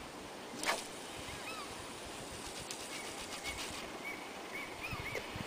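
Swish of a carp rod being cast about a second in, followed by faint fine ticking as line pays out. Birds chirp faintly in short calls throughout.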